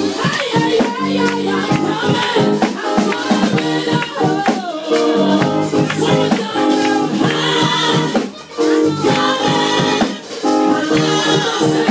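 Gospel music with voices singing over a steady beat of percussion.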